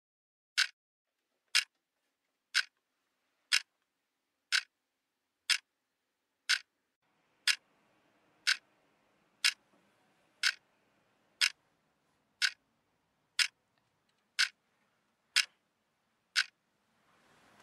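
A clock ticking once a second, evenly and sharply, with dead silence between the ticks.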